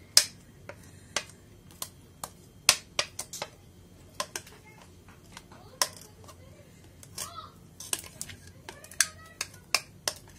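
Kitchen utensil clicking against a bowl or dish while chocolate sauce is poured: scattered, irregular sharp clicks and taps, with a faint voice near the end.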